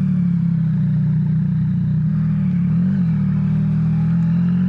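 2023 Yamaha XSR900's inline three-cylinder engine running through its SC Project exhaust, holding a steady pitch with a brief rise and fall about three seconds in.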